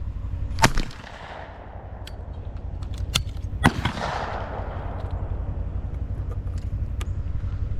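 Shotgun shots at a clay target. One comes under a second in, then two close together about three seconds in, each followed by a rolling echo.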